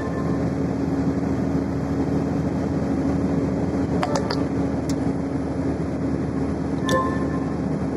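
Steady road and engine noise from inside a moving vehicle's cab, with a constant low hum. A few short clicks or rattles come about four to five seconds in, and a sharp tick near the end.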